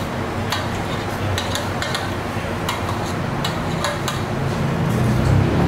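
Cutlery clinking and scraping against a plate while eating, a run of irregular light clicks. Under it runs a steady low rumble that grows louder near the end.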